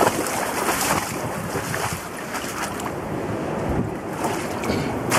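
Wind buffeting the microphone over a steady rush of noise, with a few splashy steps through shallow floodwater.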